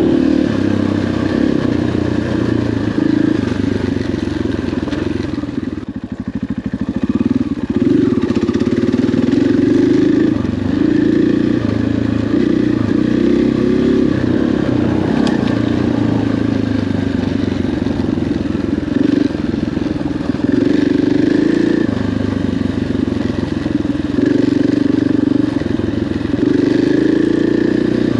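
Dirt bike engine running under constantly changing throttle, the revs stepping up and down every second or two, with a brief drop-off about six seconds in before it picks up again.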